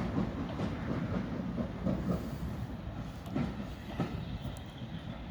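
Heritage railway train running along the track: a steady low rumble with a few sharp knocks from the wheels over the rails, two of them close together past the middle.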